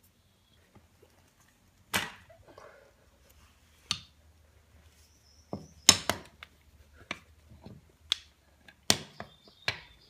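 A large long-handled cable lug crimper being set over a copper lug on heavy battery cable and squeezed for the first crimp: about nine sharp metallic clicks and clacks, the loudest about six seconds in.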